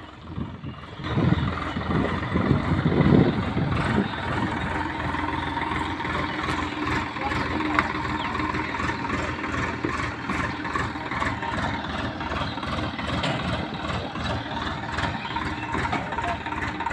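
Swaraj 735 XM tractor's three-cylinder diesel engine running under load while towing a stuck thresher and a second tractor on a rope. It is louder for a few seconds near the start, then chugs on evenly.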